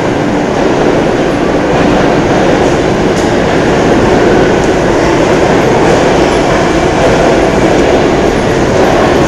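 Loud, steady rumbling noise that swells slightly in the first couple of seconds.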